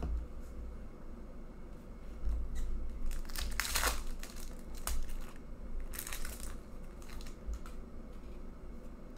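Clear plastic wrapper crinkling as hands handle it among trading cards. The crinkling comes in crackly bursts, loudest about three to four seconds in and again around six seconds.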